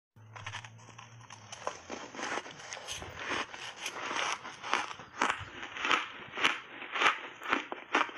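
Ice chunks coated in matcha and milk powder crunched between the teeth, close to a clip-on microphone: a dense crackling at first, then sharp crunches about twice a second as the mouthful is chewed.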